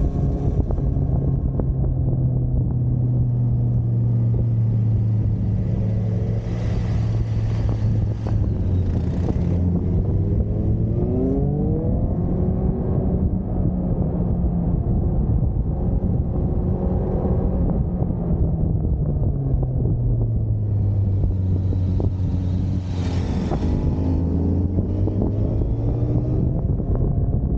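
Motorcycle engine running under way, with wind rushing over the microphone. The engine note climbs twice as the bike accelerates, once a little before halfway and again later on.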